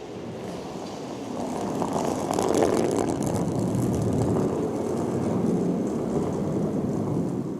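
Curling stone sliding over pebbled ice: a steady low rumble that swells over the first couple of seconds, then holds.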